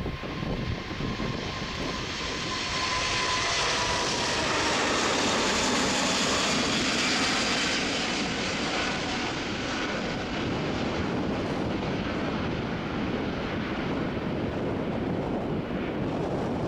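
Airbus A380-861's four Engine Alliance GP7270 turbofans at take-off thrust as it lifts off and climbs away: a loud jet roar with a whining tone that slides slightly down in pitch over the first few seconds. The sound peaks about five seconds in, then the higher part fades, leaving a deep rumble.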